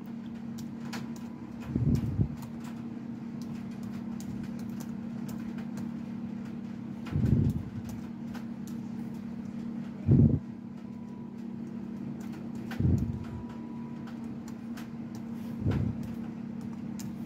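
Faint clicking of computer keys as a username and password are typed, over a steady low hum. A few dull low thumps, each about half a second, stand out every few seconds.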